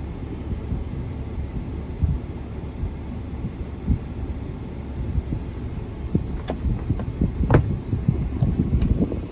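6.7 Cummins diesel running, a steady low rumble. Several sharp clicks and knocks come in the second half.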